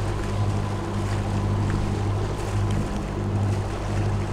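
Catamaran's inboard diesel engine running steadily under way, a low even hum, with water and wind noise over it.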